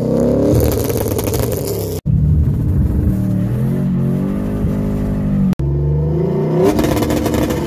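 2002 Camaro Z28's LS1 V8, with SLP long-tube headers and Powerflo exhaust, revving hard and dropping back repeatedly. The sound comes in three short cut-together clips, with abrupt breaks about two seconds in and again past five seconds.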